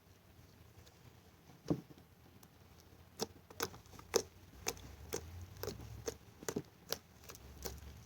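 Putty slime being kneaded by hand: a soft squish about a second and a half in, then a run of sharp sticky clicks and pops, about two a second.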